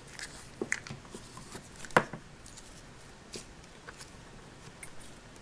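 Hands handling Play-Doh and small plastic toy pieces: faint rustling with scattered light clicks and taps, one sharper click about two seconds in.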